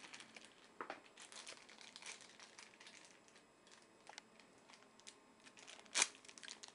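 Clear plastic packaging bag crinkling as it is handled, with scattered small clicks and one sharp click about six seconds in.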